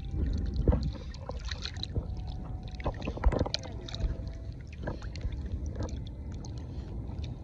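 Seawater splashing and sloshing close to the microphone, with a low wind rumble on it. Sharper splashes stand out about a second in and again a little past three seconds.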